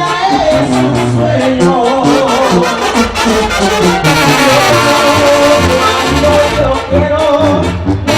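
Mexican brass banda playing live: trombones and trumpets carry the melody over a bass line.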